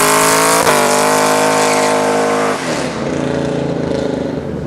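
Vehicle engine accelerating hard, its pitch climbing through gear changes: one shift about a second in and another a little past halfway, then it fades away.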